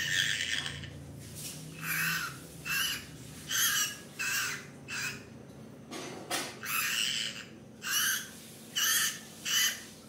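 Green-cheeked conure calling in a run of about ten short calls, roughly one a second, with a brief pause about halfway through.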